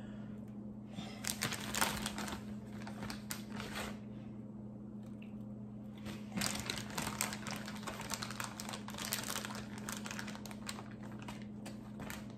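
Soft crinkling and rustling of a plastic zip-top bag as hands handle tomato slices, in two spells of quick light crackles with a short lull between. A steady low hum runs underneath.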